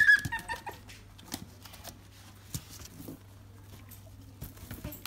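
Shiba Inu puppy moving about and being handled: scattered soft clicks and rustles, after a short high yip at the very start.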